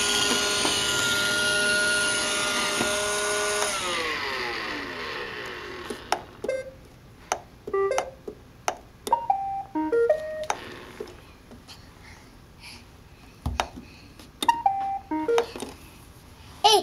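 Roomba robot vacuum running with a steady whir, its motor winding down with a falling pitch about four seconds in. It is followed by a string of short pitched chirps and beeps.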